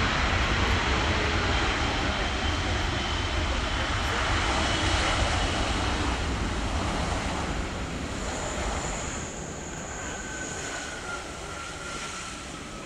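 Boeing 787-9 Dreamliner's jet engines giving a loud, steady rush during the landing rollout, fading after about seven seconds as the airliner slows and moves along the runway. A faint high whine shows through near the end.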